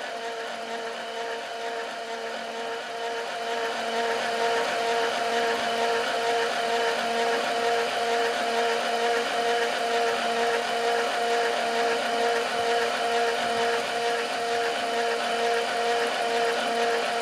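Milling machine running an end mill along the top of a cast iron bearing-block casting: a steady motor whine with an evenly pulsing tone over the hiss of the cut, growing louder about four seconds in as the cutter takes more metal.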